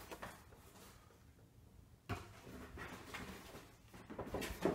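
Faint handling noises of a large plastic toy piece and its packaging: light rustles and clicks, a sharper knock about two seconds in, and a quick cluster of knocks near the end.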